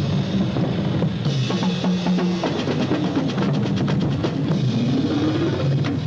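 Marching band drumline playing a percussion feature: snare drums, tenor drums and tuned bass drums, with the bass drums stepping between pitches and a fast passage of rapid strokes about halfway through.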